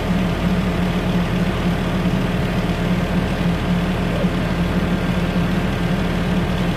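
Farm tractor engine idling steadily with an even low drone.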